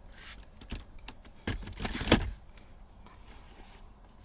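Hard plastic interior trim knocking and scraping as a console piece is fitted into place, with a cluster of handling noise about a second and a half in that ends in one sharp click.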